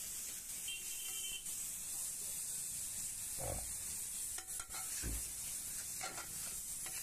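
Goat intestine and onions sizzling on a hot flat iron griddle while a steel scraper-spatula is scraped and tapped across the surface, with a few louder scrapes in the second half.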